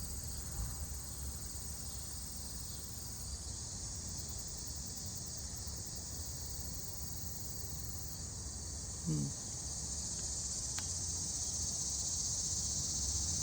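Steady high-pitched chorus of insects outdoors, growing somewhat louder over the last few seconds, over a low steady rumble.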